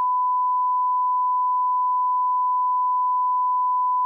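A 1 kHz reference test tone, the line-up tone that goes with broadcast colour bars: one steady, unbroken beep at a single pitch.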